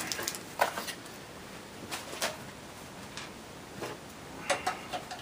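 Scattered light clicks and knocks of parts being handled and set down around a PC tower case, with a small cluster of them near the end.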